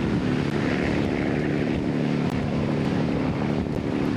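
A steady engine drone with a low, even hum of several tones held at one pitch, beginning to fade near the end.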